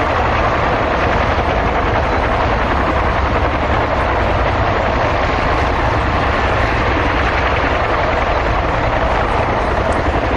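Several Bell UH-1 Huey helicopters flying low overhead: loud, steady rotor and turbine noise.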